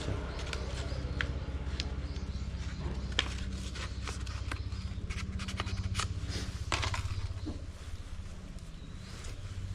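Irregular light clicks and taps of tools and metal parts being handled during scooter front brake disassembly, over a steady low hum.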